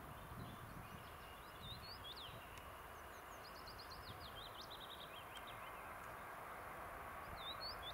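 Small songbirds singing: scattered chirps, a hooked up-and-down call about two seconds in and again near the end, and a quick run of falling notes about three and a half seconds in. Underneath is a faint steady rumble that grows slightly louder, from the ET2M electric train approaching in the distance.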